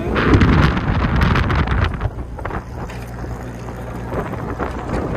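Wind buffeting the microphone over the 1937 Morris Eight's running engine, heavy for about the first two seconds, then easing so that a steady low engine hum comes through.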